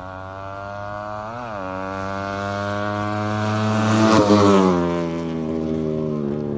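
Racing engine held at high revs, with a quick throttle blip about a second in, growing louder as it approaches, loudest about four seconds in, then dropping in pitch and fading as it passes by on a drag-race run.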